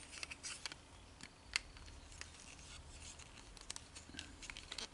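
Faint clicks and rubbing of hard plastic Transformers figure parts being handled and fitted together, with one sharper click about a second and a half in.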